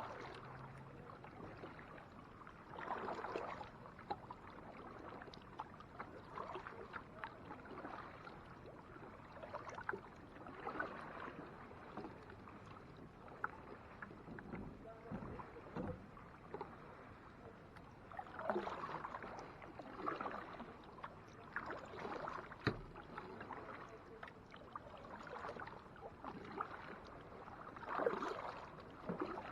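Kayak paddle strokes through water: irregular swishes and splashes every second or two, with one sharp knock about two-thirds of the way through.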